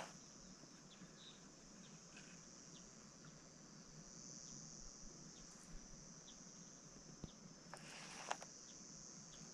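Near silence with a faint, steady, high-pitched insect buzz, as of crickets or cicadas, and a few soft clicks near the end.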